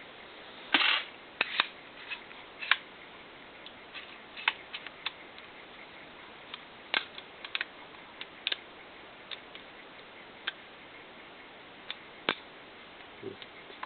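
Irregular light clicks and clinks of the small parts of a Colt M4 .22LR carbine being handled and fitted during reassembly, with a short scrape about a second in.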